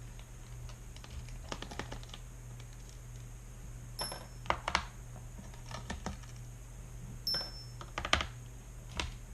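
Scattered small clicks and taps from a small Phillips screwdriver backing out the screws on the back of an HHKB Topre keyboard's plastic case, with the keyboard being handled between them.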